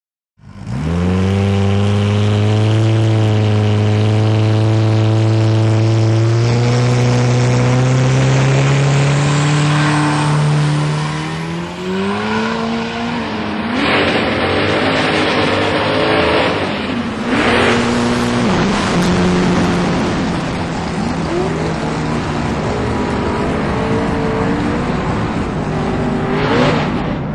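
Turbocharged 1979 Mustang race car's engine running hard, its pitch climbing steadily for about twelve seconds. It then breaks into uneven, changing running with a few sharp loud bursts.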